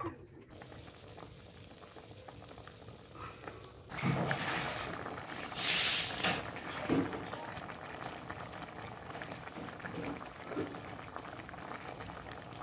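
Chicken stew simmering and sizzling in a frying pan as its sauce reduces. It is a faint steady bubbling at first, then a louder crackling sizzle from about four seconds in, with a short loud hiss near the middle and a few light clicks.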